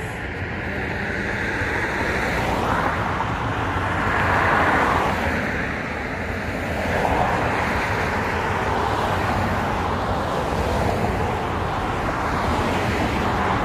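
Road traffic on a busy multi-lane road: a steady noise of tyres and engines, with cars swelling louder as they pass, most clearly about three to five seconds in and again around seven seconds.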